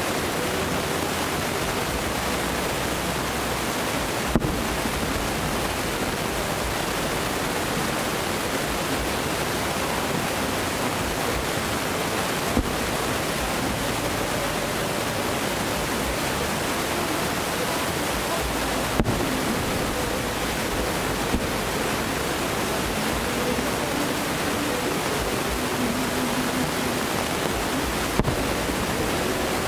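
Distant fireworks display heard from far off: a steady, even rushing noise, with five short sharp cracks spread through it as shells burst, and faint wavering tones underneath.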